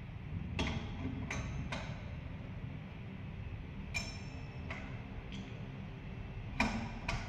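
Sharp metallic clinks and taps, each ringing briefly, in three small clusters over a steady low hum, like metal fan parts or tools knocking together while being handled.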